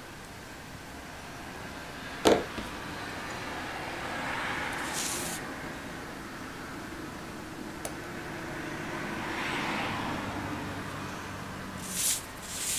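Handling sounds of small paper-craft work: card stock sliding and rustling on a cutting mat, with a sharp click about two seconds in and a few small ticks near the end.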